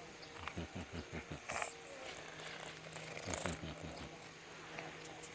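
A cat purring close by in two bouts, a fast low rattle, with brief rustles of movement between and during them.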